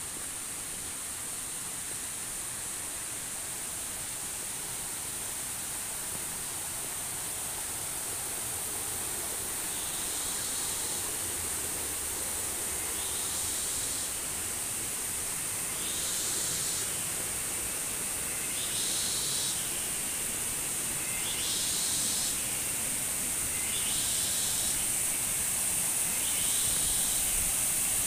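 Rushing stream and waterfall water, a steady noise that grows slowly louder. A steady high buzz runs over it, and from about ten seconds in a pulsing high call repeats every two seconds or so.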